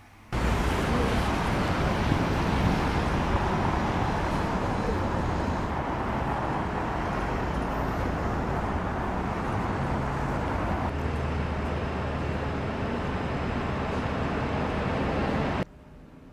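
Busy city street ambience: a steady wash of traffic noise that cuts in suddenly at the start and cuts off suddenly near the end.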